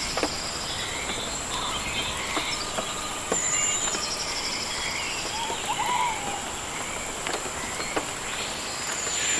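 Rainforest ambience: a steady high-pitched insect drone with many birds chirping and trilling over it, and scattered sharp ticks.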